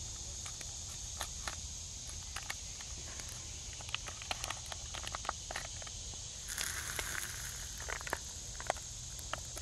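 Insects droning steadily at a high pitch, with scattered light clicks and taps as cups and a paper packet are handled, and a short rustle about six and a half seconds in.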